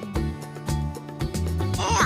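Cheerful background music with a steady beat and repeating bass notes.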